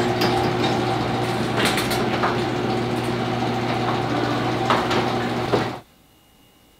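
An electric motor running steadily at a constant pitch, with a few clicks and rattles, then stopping abruptly near the end.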